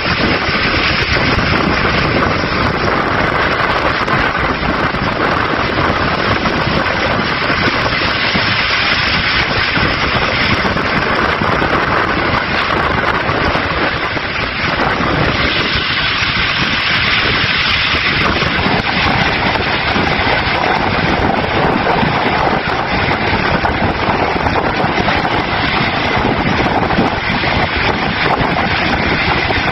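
Storm wind and heavy seas around a ship, a loud steady roar without let-up.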